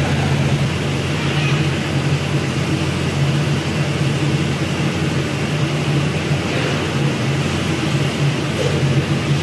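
Steady machinery hum: a low, even drone with a hiss over it.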